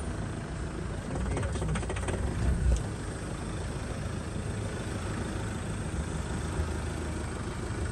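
Four-wheel-drive's engine running at low speed as it crawls along a rutted dirt track, with a burst of bumping and rattling about two seconds in.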